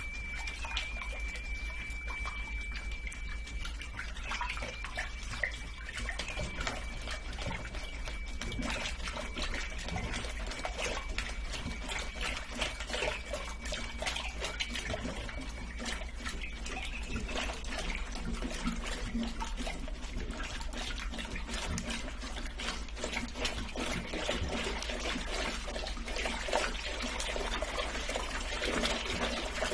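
Water sloshing and splashing in a blocked toilet bowl as a toilet brush wrapped in a plastic bag is pumped up and down like a plunger to build pressure against the clog. A faint steady high tone runs through the first half.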